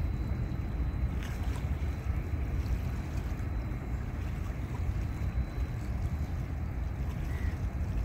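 Wind on the microphone making a steady low rumble by open water, with a couple of faint clicks about a second in.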